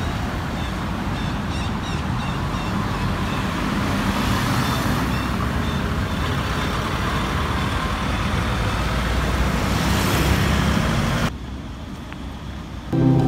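Road traffic, cars driving past, with small birds chirping over it in the first few seconds. About eleven seconds in the traffic noise drops suddenly to a quieter background.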